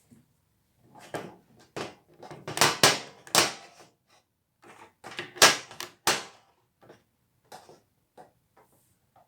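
A 3x3x3 Rubik's cube's faces being turned by hand through a move sequence: irregular plastic clicks and clacks, in louder clusters during the first two-thirds, then fainter single clicks.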